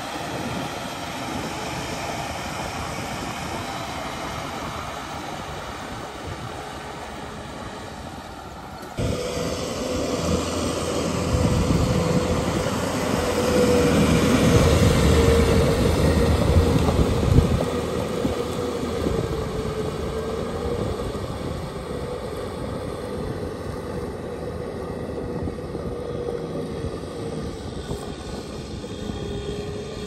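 A tractor's diesel engine runs steadily under load as it pulls a rotary tiller through flooded paddy mud, with a hum that wavers slightly in pitch. The sound jumps louder about nine seconds in and swells for several seconds before easing back to a steady drone.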